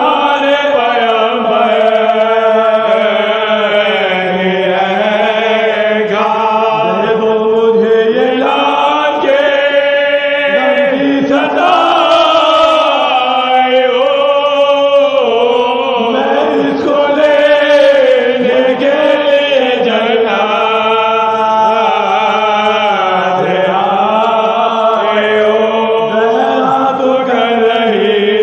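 Soz khwani, a mourning recitation in Urdu, chanted by a group of male reciters singing together in a continuous melodic line.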